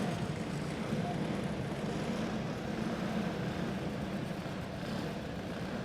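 Several quarter midget karts' small clone engines running together at a low, steady pace, an even drone with no revving.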